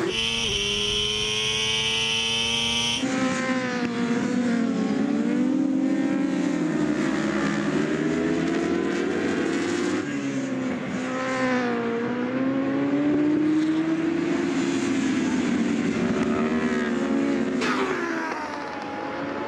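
Racing superbikes' inline-four engines at full race speed, several bikes together, the pitch rising and falling with throttle and gear changes. The engine note jumps abruptly a few times where one shot cuts to another.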